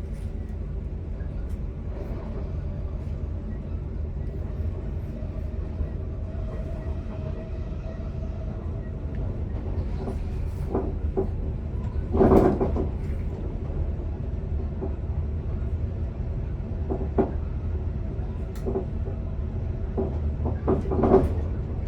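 Swedish electric commuter train running along the track, heard as a steady low rumble from the driver's cab. A few knocks and clatters break through it, the loudest about halfway and another near the end.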